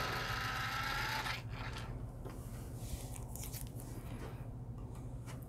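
Tortoise slow-motion switch machine's geared motor whirring faintly as it throws the turnout points the other way, stopping a little over a second in. After it, faint taps and rubs of multimeter probes on the rails.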